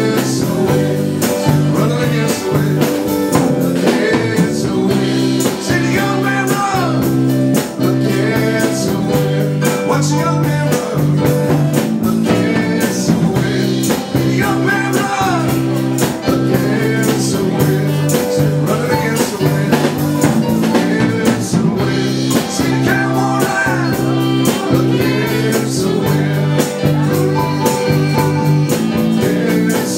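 Live band playing a bluesy rock number: electric guitar, bass and drums with a steady beat, and singing.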